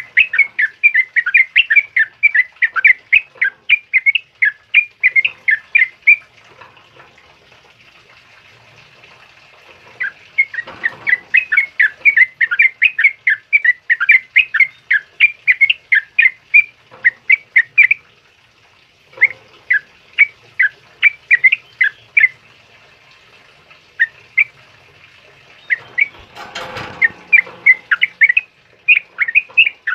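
Yellow-vented bulbul (trucukan) singing in bursts of rapid, bubbly high notes, several a second, with a pause of a few seconds after the first burst. A brief rustling noise comes near the end.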